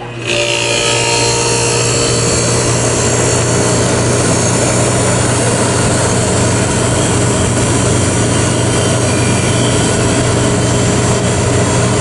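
1972 HeatController 9,000 BTU window air conditioner kicking on as its selector knob is turned: just after the start the sound jumps up, and its Tecumseh AK compressor and blower settle into a loud, steady hum with a rush of air.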